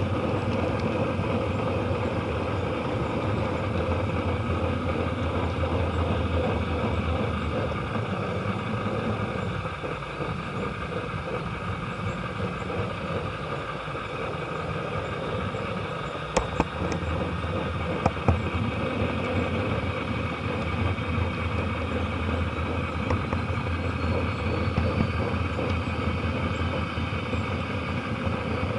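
Model train running along the track, a steady rolling rumble and motor hum picked up up close from a car in the train and muffled by the camera's waterproof case. A few sharp clicks come about two-thirds of the way through.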